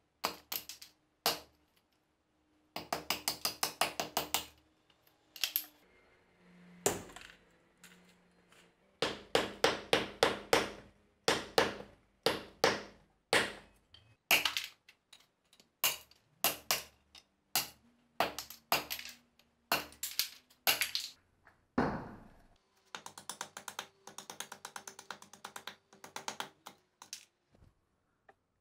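Restored fireman axe chopping into dry ash wood on a chopping block: a long series of sharp chopping strikes, some coming in quick runs of several blows a second, as the stick is split and cut.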